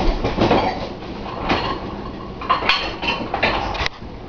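Kitchen utensils and dishes clattering: irregular knocks and clinks from someone rummaging for a measuring cup, with a few sharper knocks about halfway through and near the end.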